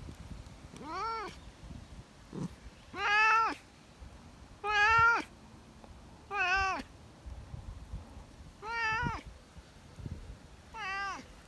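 A cat meowing over and over: six drawn-out meows, about two seconds apart, each rising then falling in pitch, the second and third the loudest.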